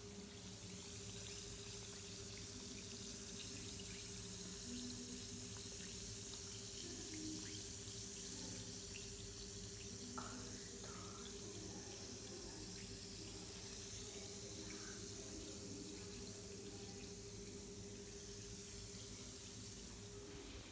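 Lush bath bomb fizzing as it dissolves in bath water: a faint, steady hiss of bubbles with many tiny crackles.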